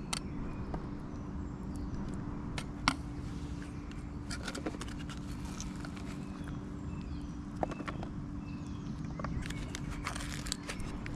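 Light clicks and taps of a small plastic tub being handled and chopped spring onions sprinkled onto a plate, over a steady low hum; the sharpest click comes about three seconds in.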